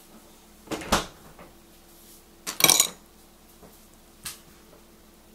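Metal spoon knocking and clinking against a stoneware cereal bowl: two knocks about a second in, a louder rattle of clinks near three seconds, and a lighter click a little after four seconds.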